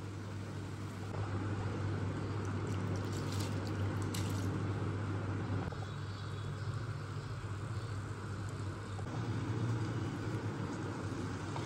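Mutton broth and rice simmering in a pan: a steady bubbling hiss over a low hum.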